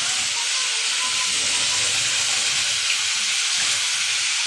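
Chicken being simmered in spices (ungkep) in a pan, sizzling with a steady hiss.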